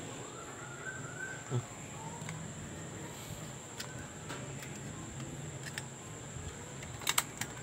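Hands handling a clear plastic action-camera housing with a rubber hose fitted into it: quiet rubbing, then a quick run of sharp plastic clicks near the end, over a faint steady high-pitched whine.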